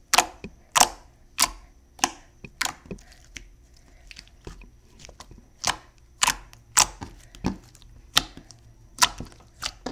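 Glossy basic slime being squished and stretched by hand, giving a string of sharp popping clicks as trapped air bursts, about one every half second at first, then less regular.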